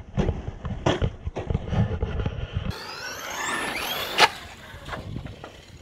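Electric RC monster truck accelerating: its motor whine rises steeply in pitch over about a second and ends in a sharp knock just after four seconds in. Before that there is a low rumble with scattered clicks.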